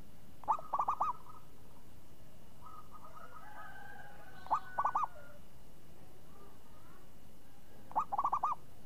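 Zebra dove (perkutut) cooing: three song phrases about four seconds apart, each a short opening note followed by a quick run of three or four rolling coos. Fainter bird calls sound between the first two phrases.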